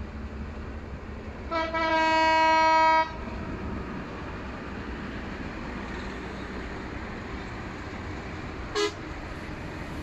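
Diesel locomotive horn: a short toot, then a held single-pitch blast of about a second and a half, about two seconds in, and one brief toot near the end, over a low steady rumble.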